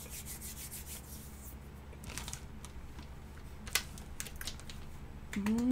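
Crinkling and rustling of thin clear plastic cookie bags being handled, with scattered small clicks. A rising pitched vocal sound begins at the very end.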